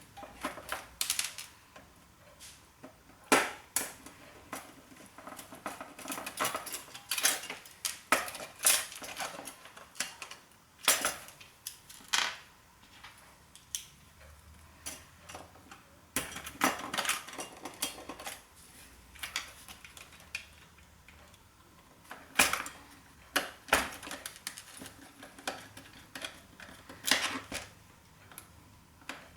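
Floppy disk drive being taken apart by hand: irregular sharp clicks, taps and short clattering runs of small metal parts and screws being handled.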